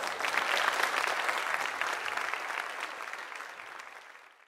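Crowd applause, many hands clapping, loudest in the first second or two and then slowly fading out.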